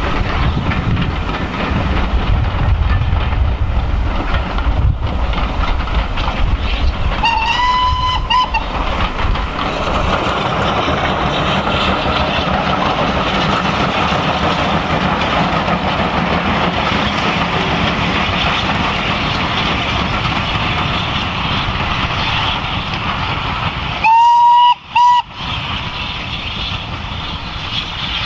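Hunslet 0-6-0 tank locomotive No. 3781 running steadily with its coaches, a continuous rumble and hiss. Its steam whistle blows once, about a second long, a quarter of the way in, and twice near the end: a longer toot and then a short one, the loudest sounds here.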